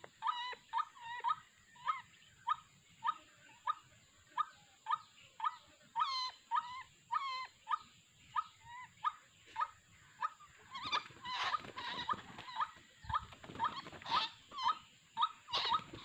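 White-breasted waterhen 'ruak-ruak' call, a short harsh note repeated steadily about twice a second. From about eleven seconds in the calling grows louder and rougher, mixed with noise.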